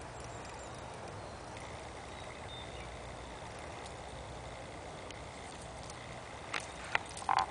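Steady outdoor background hiss, then a few short sharp clicks and knocks near the end.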